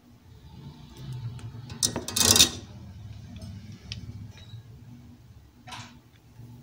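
Workbench handling noise as the amplifier board, its freshly soldered USB lead and the tools are moved: one loud, brief rustle about two seconds in, a softer one near the end, and scattered light clicks and taps over a faint low hum.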